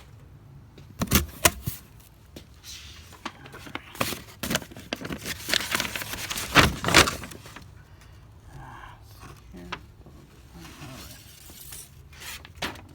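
Packaging being handled during an unboxing: rustling and crinkling with a run of sharp clicks and knocks, busiest around the middle, then quieter fumbling.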